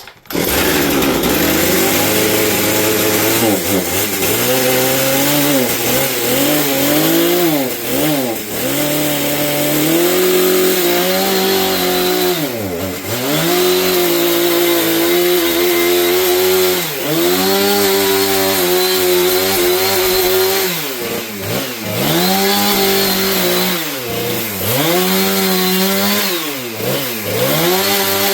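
Husqvarna 460 Rancher two-stroke chainsaw running at high revs and cutting up a Christmas tree. Its pitch dips and climbs back again and again as the throttle is eased off and squeezed.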